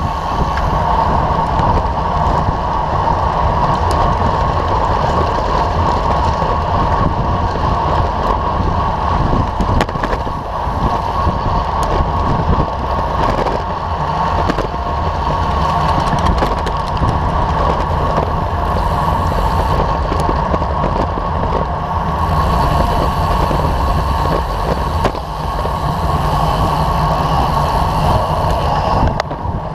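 Wind noise buffeting the microphone of a camera on a road bicycle riding in a racing bunch: a steady rush with a strong low rumble.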